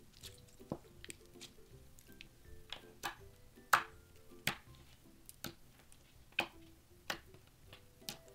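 Clear slime with fruit slices pressed and poked by fingers, giving about a dozen irregular sharp, wet clicks and pops, the loudest a little before halfway, over quiet background music.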